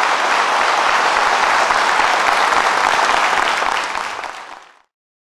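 Audience applauding after the song, the clapping fading away near the end.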